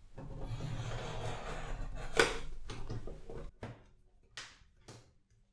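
Cardboard box with a paper sleeve being handled and the sleeve slid off: a rubbing, scraping sound for about three and a half seconds with a sharp tap just past two seconds, then three short light taps.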